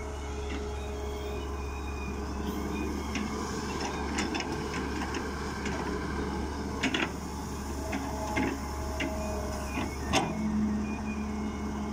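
Volvo wheeled excavator's diesel engine running steadily under hydraulic load, with a steady hydraulic whine over it. Sharp clanks and knocks come from the bucket as it dumps soil into a tractor trailer and digs again, the loudest about ten seconds in.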